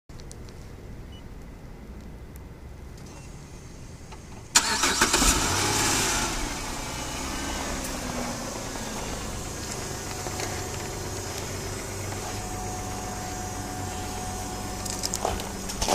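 Chrysler Pacifica's engine starting about four and a half seconds in: a short crank and catch, running fast for a moment, then settling into a steady idle. At this point it starts up sounding normal, without the whine that comes with revving.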